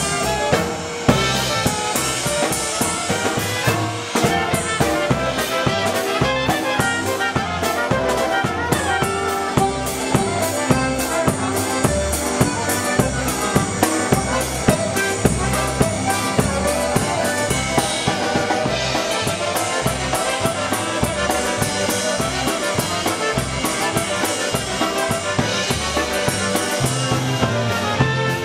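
Live polka band playing a polka: electric bass guitar and drum kit keep a steady, evenly spaced beat under the melody instruments.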